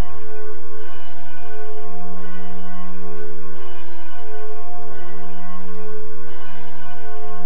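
Church bell ringing, struck about once every one to two seconds, each stroke ringing on into the next.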